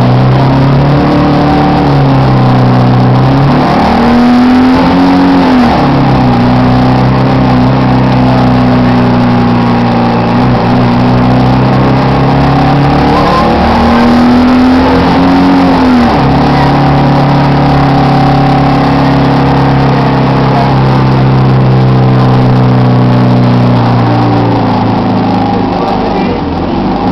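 Heuliez GX 427 bus engine running with a loud, droning abnormal noise, its pitch rising and falling back twice as the engine revs, then holding steady. The uploader puts the noise down to a problem between the air-conditioning compressor and the engine.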